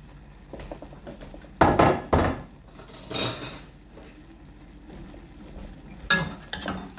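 Kitchen clatter while cooking: a couple of loud knocks about two seconds in, a brief hiss a second later, then a metal spatula clanking against a stainless steel wok near the end as stirring begins.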